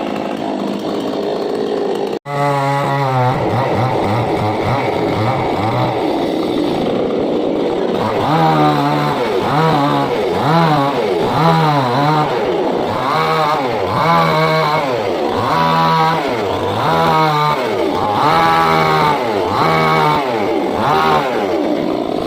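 Stihl two-stroke chainsaw running. After a brief break about two seconds in, its engine note swings up and down about once a second, over and over.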